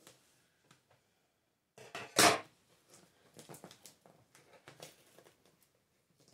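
A heavily taped cardboard parcel being worked at by hand: one loud, short tearing or scraping noise about two seconds in, then scattered small scrapes and clicks.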